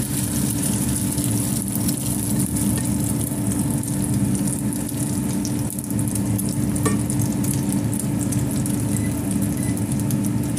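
Hot oil sizzling and crackling steadily around an egg-and-white-fish fritter frying in a stainless steel pan. A steady low hum runs underneath.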